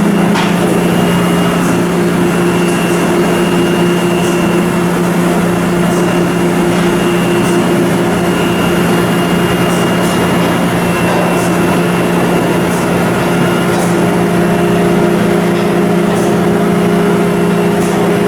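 Loud, steady machinery drone with a constant low hum and a faint thin whine above it, with a few light clicks.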